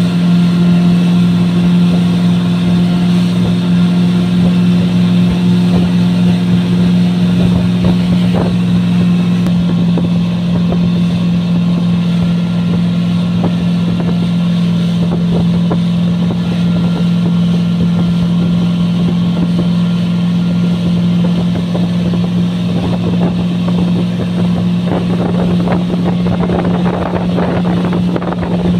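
Mercury FourStroke outboard motor running at a steady speed, a constant drone that holds one pitch, with the rush of the boat's wake and spray. The water and spray noise grows louder near the end.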